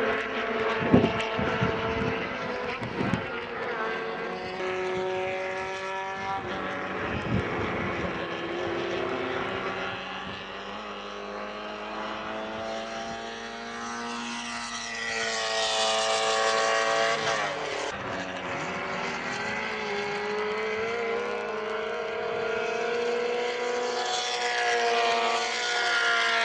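Small 850 cc race-car engines running at high revs as several Fiat 600-bodied cars lap the circuit. Their pitch slides up and down with gear changes and passes. The loudest pass rises and falls about two-thirds of the way through, and another car comes close near the end.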